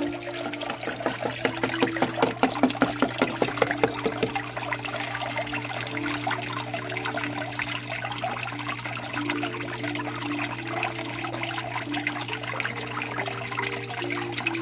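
Thin sheet of water trickling steadily over a Miller table, washing a scoop of black-sand gold concentrate across its flat surface, over a steady low hum. A run of quick taps about two to four seconds in.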